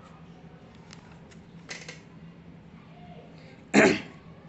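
A ballpoint pen writing and underlining on notebook paper gives a few faint short scratches. About three-quarters of the way through, the person lets out one loud, short explosive breath.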